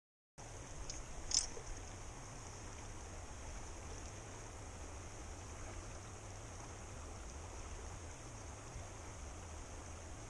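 Steady rush of a shallow, rocky river flowing past, with one sharp click about a second and a half in.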